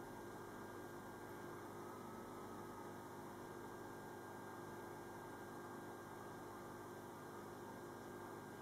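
A steady low hum made of several constant tones, under an even hiss.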